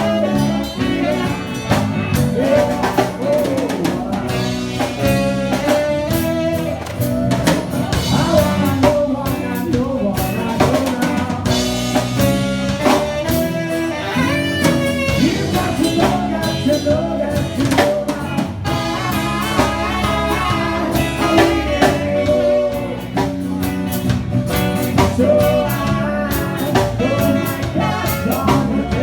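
A band playing a pop-rock cover medley: a steady drum-kit beat under instruments, with a singing voice.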